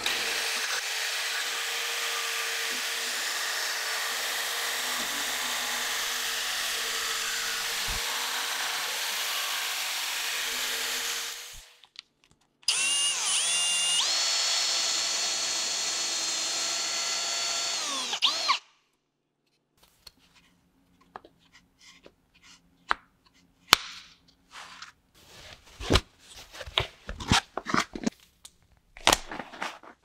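Bosch jigsaw cutting plywood, a steady buzzing cut for about eleven seconds. After a short pause, a drill press spins up and bores into plywood with a Forstner bit for about six seconds, a steady whine with clear tones. Scattered light taps and clicks follow.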